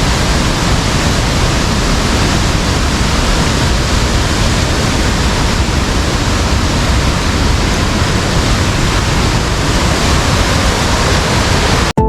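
Loud, steady rush of a waterfall heard close up, cutting off suddenly near the end.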